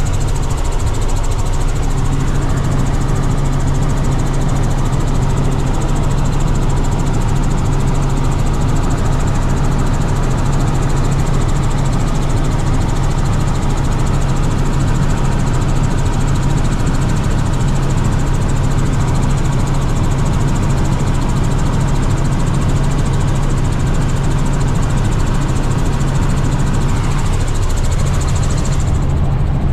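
Helicopter engine and rotor drone heard inside the cabin in flight: a loud, steady hum with a strong low tone. The higher hiss above it drops away abruptly just before the end.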